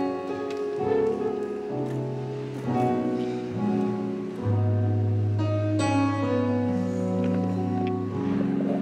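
Instrumental music: slow, held chords over deep bass notes, with a strong low note holding from about halfway through.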